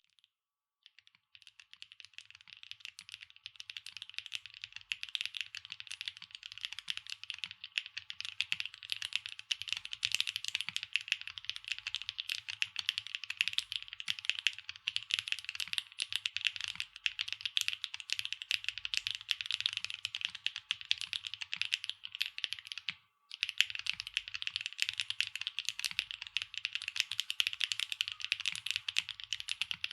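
Fast, continuous typing on a SAAG65 mechanical keyboard with HMX Lucky linear switches, an aluminium plate, no foam and PBT/ABS double-shot keycaps: a dense stream of keystroke clacks. It starts about a second in, with one brief pause about three-quarters of the way through.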